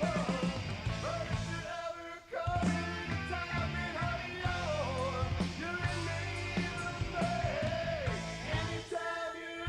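Rock song with a sung lead vocal over a full band. The band cuts out for a moment about two seconds in.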